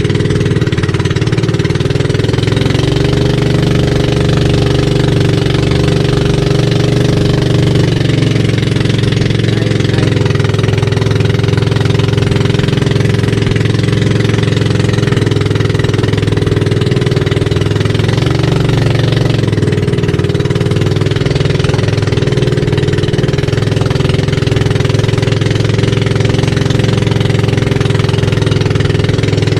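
Engine of a motorized outrigger boat running steadily under way, with water rushing and splashing along the hull and outrigger.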